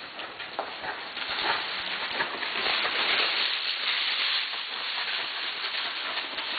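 Rushing wind and handling noise on a camera carried on a moving horse, swelling in the middle, over faint muffled hoofbeats in soft arena dirt.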